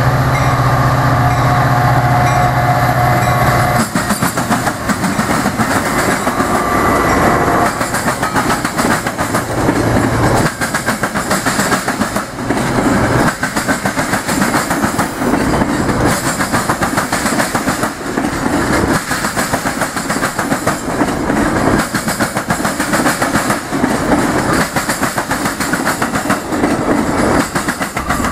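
Metra F40PHM-2 diesel locomotive sounding its horn, a steady chord that cuts off about four seconds in. The train then rolls past, with the steel wheels of its bilevel passenger coaches clattering over the railroad diamonds in a rapid, continuous clicking.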